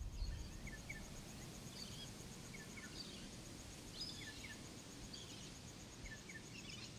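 Faint nature ambience: birds chirping in short repeated pairs about once a second over a low rumbling background, with a steady high trill.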